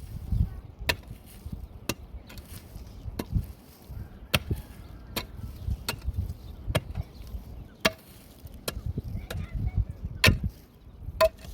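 Repeated sharp strikes of a tool on wood, about one a second at uneven spacing, over a low rumble.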